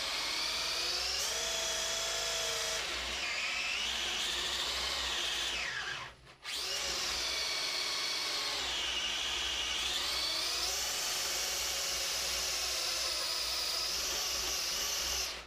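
7200Kv brushless electric motor in a toy RC truck whining at high speed. Its pitch rises and falls over and over with the throttle, and it drops out briefly about six seconds in.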